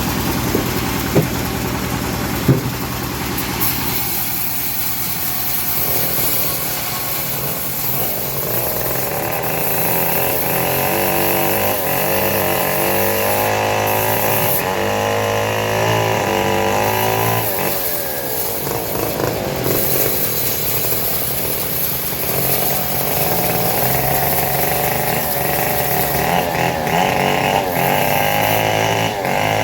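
Homemade engine-driven bandsaw running as it cuts teak, the engine note rising and falling as the load changes. Two sharp knocks come about one and two and a half seconds in.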